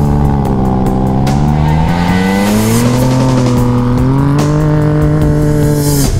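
Rally side-by-side buggy's engine under acceleration, its note dipping and then climbing in steps before holding high. It cuts off suddenly near the end.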